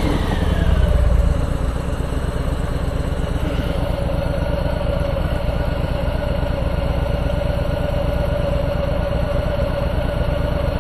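Harley-Davidson Milwaukee-Eight V-twin just after a cold start. It runs at a raised idle for about the first second, then settles into a steady idle.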